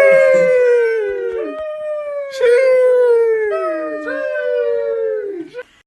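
A dog howling: a string of long howls, each one sliding down in pitch, with new howls starting about every second and overlapping the last.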